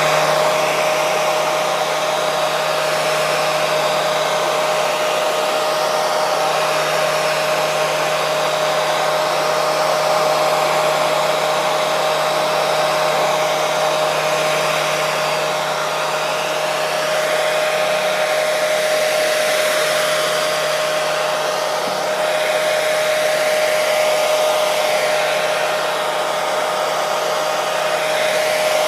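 Hair dryer running continuously: a steady rush of blowing air with a constant motor hum, played as white noise to help a baby sleep.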